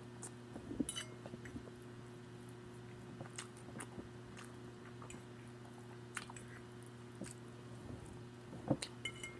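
A person chewing and smacking while eating, with scattered short wet mouth clicks over a steady low hum.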